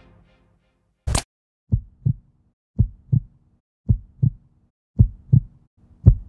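Heartbeat sound effect: pairs of low lub-dub thuds, about one beat a second, after a single short sharp hit about a second in. The last beat is the loudest.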